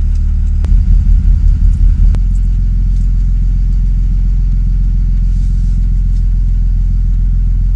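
Pickup truck engine running steadily, heard inside the cab as a low rumble. Between about one and two seconds in, the rumble throbs louder at about five pulses a second, framed by two light clicks.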